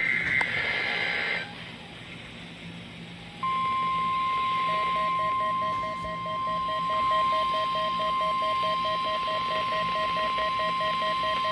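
NOAA Weather Radio warning alarm tone: a single steady high tone that starts about three seconds in and holds, with a receiver's alert beeping rapidly and evenly alongside it from about a second later. A short high buzzing burst comes in the first second or so, before a brief lull.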